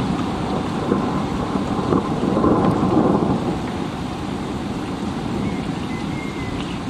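Thunderstorm: steady heavy rain with a low rumble of thunder that swells about two seconds in and then eases off.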